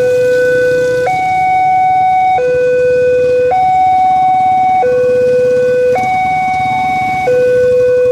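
Railway level-crossing warning alarm sounding: an electronic two-tone signal alternating between a lower and a higher note, each held just over a second, warning that a train is approaching. A low rumble runs underneath.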